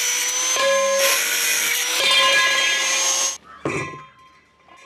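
Electric angle grinder with a cutting disc cutting through iron pipe: a steady high whine over harsh grinding noise that stops about three and a half seconds in. A short knock follows.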